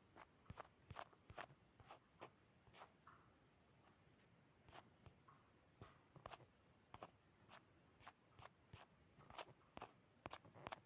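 Near-silent room tone with faint, irregular clicks and taps scattered throughout, a few to several each second.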